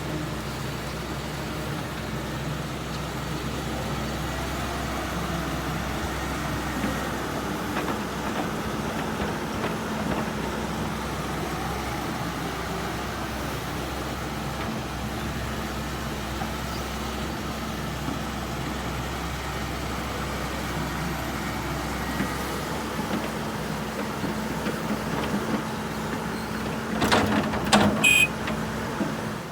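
Excavator's diesel engine running steadily. A few loud knocks near the end.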